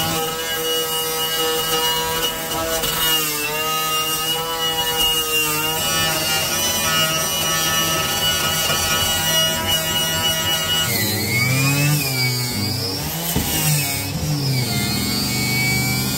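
Angle grinder with a wire wheel scrubbing rust off a corroded steel car floor pan, its motor whining steadily. From about two thirds of the way through, the whine wavers up and down in pitch as the brush is pressed into the metal.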